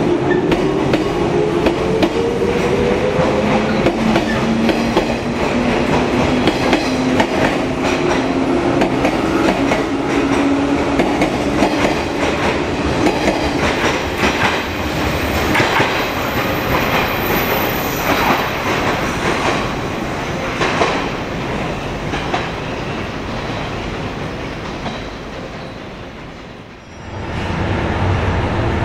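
JR 115-series electric train pulling out of the station. Its motor whine rises in pitch over the first few seconds, then the wheels clatter over the rail joints as the cars go by. The sound fades away and cuts off abruptly near the end.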